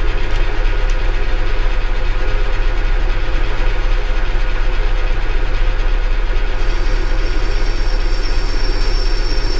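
Manual lathe running at low spindle speed while a high-speed-steel parting tool cuts into the turning workpiece, a steady machine hum with cutting noise. A thin high whine joins about seven seconds in.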